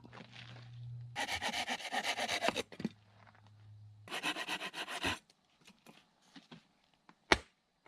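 Dry wood being rasped in long rough strokes, two of them lasting about a second each, followed by a few sharp cracks near the end.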